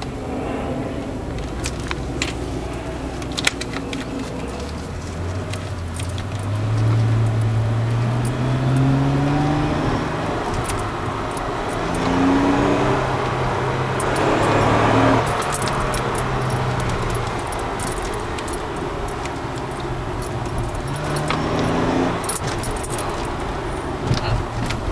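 Supercharged V6 of a TRD Aurion on its stock exhaust, heard from inside the cabin, revving up under acceleration several times, its pitch climbing and dropping back at each gear change, with a loud surge of intake noise about halfway. Light jingling clicks come and go over it.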